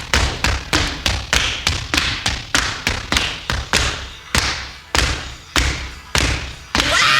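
Steady beat of percussive thuds, about two and a half a second and slowing a little, spilling from the band's playing into the vocal microphone on an isolated vocal track.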